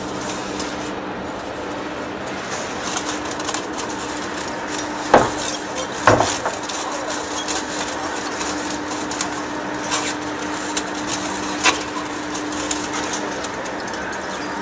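Large metal lathe taking a heavy cut on a steel workpiece: steady machine running noise with a low hum, and sharp clinks of curled hot chips breaking off and falling now and then, the loudest about five and six seconds in.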